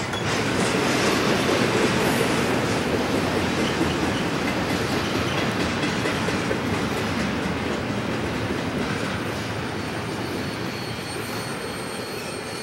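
Intermodal freight train's double-stack well cars rolling past on the rails. A thin, high wheel squeal comes in about two-thirds of the way through, and the passing noise eases off slightly toward the end.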